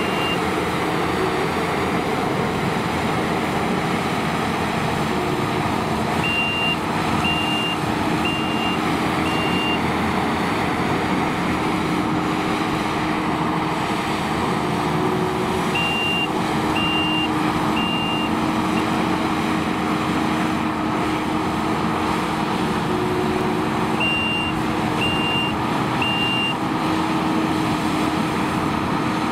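Kubota SVL95-2 compact track loader's four-cylinder diesel engine running steadily as the machine works. A backup alarm beeps in three short runs of three or four beeps, about a second apart.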